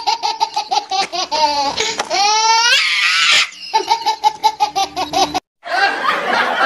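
High-pitched laughter added as a sound effect, a fast run of even 'ha-ha-ha' pulses with a rising squeal in the middle. It breaks off for a moment about five and a half seconds in, and a rougher laugh follows.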